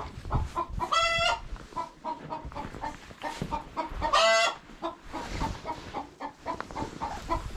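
Chickens clucking steadily in short repeated notes, with two louder drawn-out squawks about a second in and again about four seconds in.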